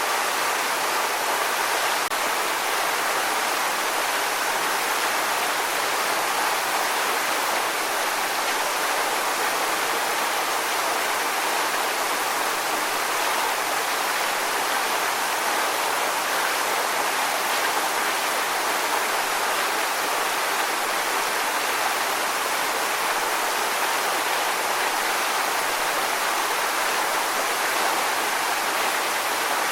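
Waterfall: a steady, unbroken rush of falling water, even throughout.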